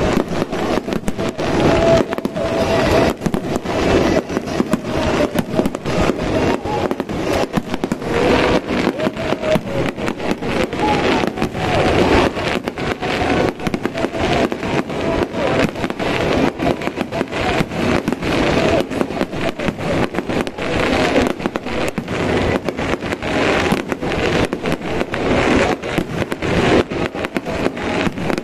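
Aerial fireworks finale: a dense, unbroken barrage of shell bursts, many bangs a second overlapping with crackle.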